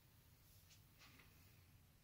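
Near silence: room tone with a faint steady low hum and a couple of faint soft ticks about a second in.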